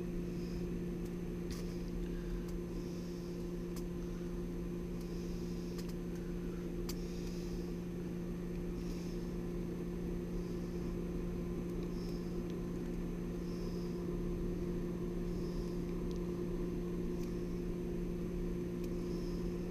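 Steady low electrical hum with two constant tones, with a few faint clicks of small wires being handled at the terminal block and a faint soft hiss recurring every second or two.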